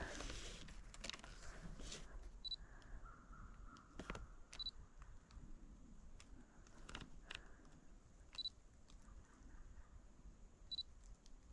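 Quiet woodland ambience with a few faint scattered clicks and crackles, and four very brief high-pitched chirps a few seconds apart.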